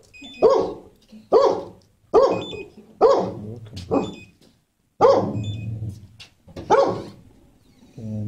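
A dog barking in a shelter kennel: about seven sharp barks roughly a second apart, echoing off the hard walls, with a short break about halfway through.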